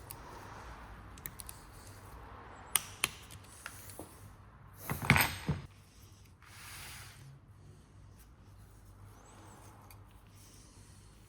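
Small metal parts or tools being handled on a bench: a few sharp clicks, then a short loud clatter about five seconds in.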